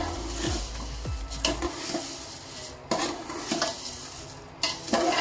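Metal spoon scraping and knocking against a large aluminium pot as vermicelli is stirred and roasted in ghee, with a light sizzle underneath. Several sharper knocks of the spoon on the pot stand out, the loudest near the end.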